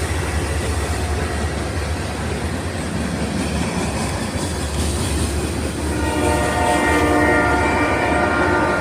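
A train rumbling past, its wheels clattering on the rails; about six seconds in, the locomotive's horn sounds a long held chord.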